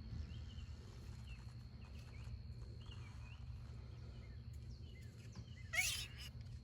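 Quiet outdoor ambience: faint scattered bird chirps over a steady low rumble, with one brief, sharper noisy sound near the end.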